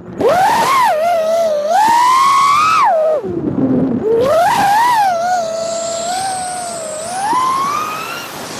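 FPV quadcopter's brushless motors and propellers whining, the pitch rising and falling with the throttle: a sharp climb in the first second, a throttle drop to a low pitch about three seconds in, then back up to a steady whine that rises again near the end.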